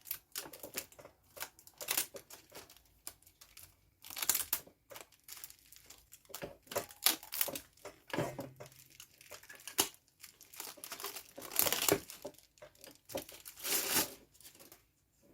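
Packaging being handled and crinkled, with irregular crackling rustles starting and stopping throughout.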